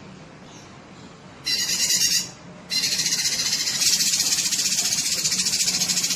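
Cucak kinoi singing in fast, hissy trills: a short burst about a second and a half in, then a long unbroken trill from nearly three seconds in.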